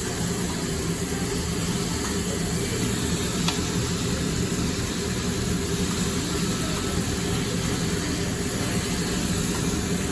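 Steady hissing rush with a low hum from a hibachi grill table, typical of the griddle's overhead exhaust hood running, with a faint click about three and a half seconds in.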